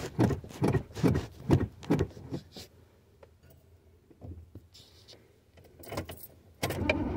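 Starter cranking the 1986 Chevrolet Caprice Classic's engine, which has sat unstarted for a year, heard from inside the cabin. It is a rhythmic churn of about two pulses a second that does not catch. It stops about two and a half seconds in, and the cranking starts again, louder and steady, near the end.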